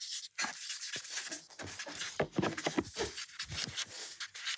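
Markers scratching across cards as several people write at once, in many short irregular strokes with small knocks of handling.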